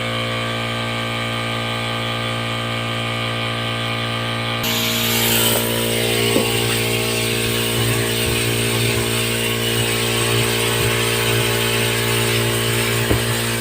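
Electric pressure washer motor running with a steady hum. About four and a half seconds in, the spray starts with a loud, continuous hiss of the water jet, and a couple of light knocks come through it.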